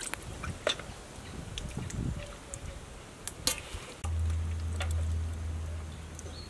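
Pork pieces simmering in water in a wok over a charcoal stove, with faint scattered pops and ticks. About four seconds in, a steady low rumble starts suddenly.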